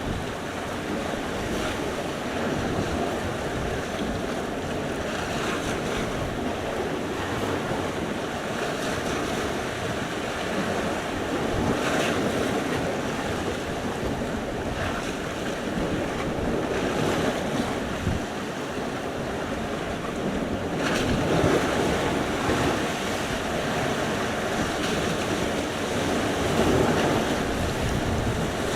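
Sea surf: waves breaking and washing ashore without a break, swelling louder now and then as bigger waves come in.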